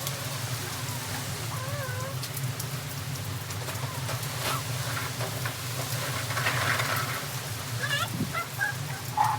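Steady rain falling, over a low steady hum. A few short high chirping calls come near the end.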